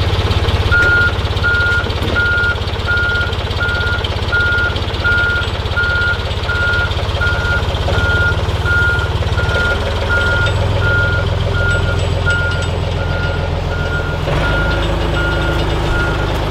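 A backup-style warning alarm beeping steadily, one high tone repeated two to three times a second and starting about a second in, over the steady low running of a heavy machine's engine. The alarm warns that the lifting equipment is moving.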